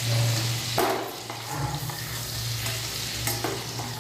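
Oil sizzling in a steel kadai as whole fried pointed gourds are scooped out with a metal spatula, with a few short scrapes and knocks of the spatula against the pan, over a low steady hum.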